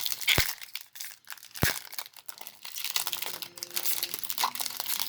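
Foil booster pack wrapper crinkling and being torn open, with two sharp snaps in the first two seconds and steady crinkling and rustling from about three seconds in.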